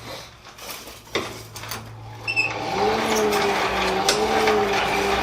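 A few light metal clinks, then about halfway through an electric forge blower spins up with a rising hum and runs steadily over a rush of air, heating the steel.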